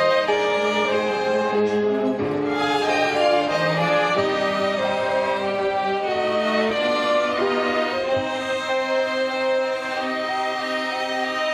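Violin ensemble playing a slow hymn tune in several parts, with long held notes that move to new chords about every second.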